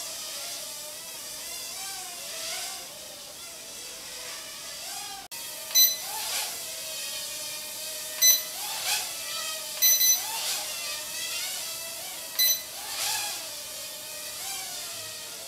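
Small toy quadcopter's motors and propellers whirring in flight, the pitch wavering up and down as the throttle changes. After a cut about five seconds in, several short, sharp electronic beeps sound over the whir.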